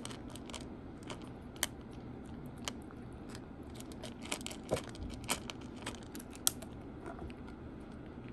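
A cat eating dry kibble from a bowl: irregular, crisp crunches and clicks as it chews and picks up pellets, a few louder, thinning out shortly before the end as it lifts its head.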